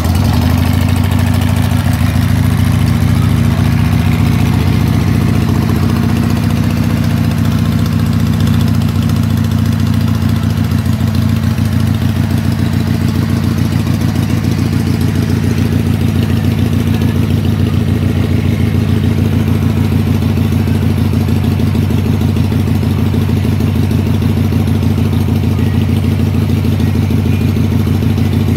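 2003 Harley-Davidson Sportster XLH 883's air-cooled V-twin engine idling, freshly started. It is a little uneven for the first several seconds, then settles into a steady idle.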